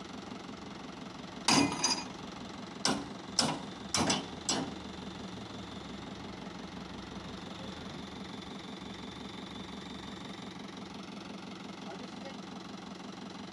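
Tractor engine idling steadily while five sharp knocks come in a quick cluster about one and a half to four and a half seconds in, as the worker knocks open the rear tailgate latches of the tipping trailer ready to unload.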